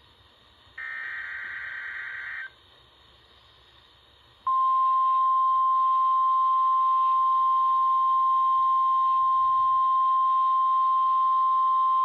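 Emergency Alert System (SAME) broadcast from a Midland weather alert radio: a burst of SAME digital header data lasting about a second and a half, a pause of about two seconds, then the steady, loud weather-radio warning alarm tone starting about four and a half seconds in. The tone signals a new severe thunderstorm warning.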